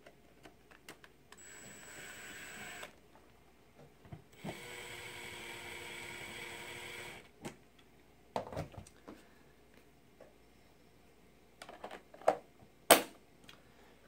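Cordless electric screwdriver with a T10 security bit running twice, first for about a second and a half and then for about three seconds, driving a screw into the back of a plastic TiVo Bolt case. Afterwards come a few knocks and a sharp click as the plastic case is handled.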